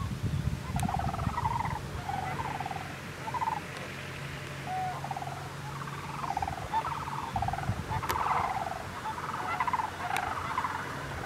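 Canada geese honking: a continuous run of short honks and clucks, about two or three a second.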